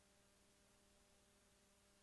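Near silence: only a faint, steady hum and hiss from the VHS recording.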